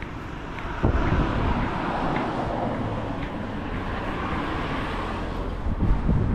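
Street traffic: a vehicle passing with a swell of tyre and road noise that builds about a second in and slowly eases, with wind buffeting the microphone near the end.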